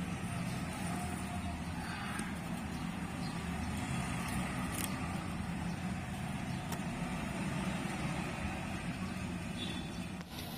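Steady low background rumble, like a motor running, with a few faint clicks.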